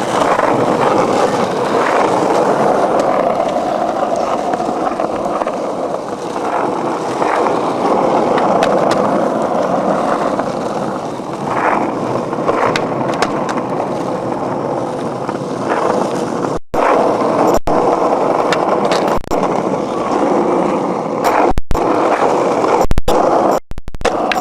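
Skateboard wheels rolling on concrete, a steady rumble with a few sharp clacks, broken by several brief dropouts near the end.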